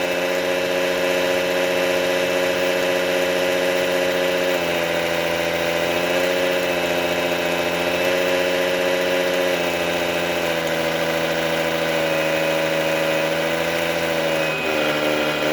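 Sound module in an RC wheel loader playing a simulated diesel engine through its speaker. It runs steadily, and its pitch steps up and down a few times as the revs change.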